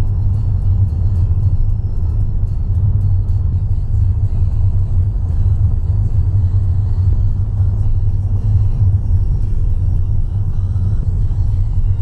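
Loud, steady low road rumble of a car driving, heard inside the cabin.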